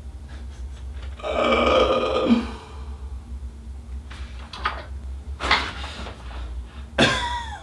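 A man's strained, grunt-like vocal sound about a second in, then wooden knocks and a creak as the pine top bunk of an IKEA Mydal bunk bed frame slips and drops onto the lower frame. A sharper knock near the end is followed by a short falling squeal.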